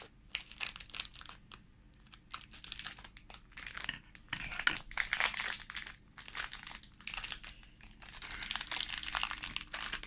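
Plastic wrapper bags crinkling in bursts as the packs holding toy robot parts are handled, unfolded and opened.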